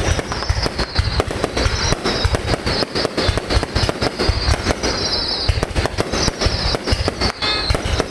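A fireworks display going off in a continuous barrage: many sharp bangs a second, one close on another, with a steady high crackling hiss over them.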